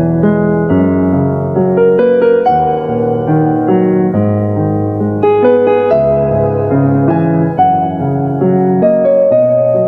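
Background music: a gentle piano melody over sustained bass notes.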